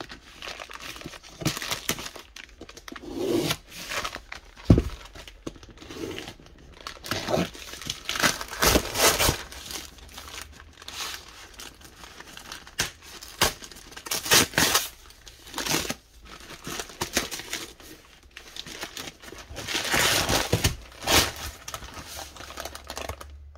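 Brown paper wrapping being torn and crumpled off a duct-taped parcel by hand, in irregular bursts of rustling and ripping. There is one sharp knock about five seconds in.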